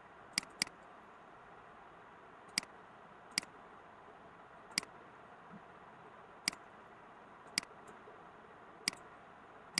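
Computer mouse button clicks, about eight single sharp clicks spread unevenly over the stretch, with two in quick succession near the start, over a faint steady hiss.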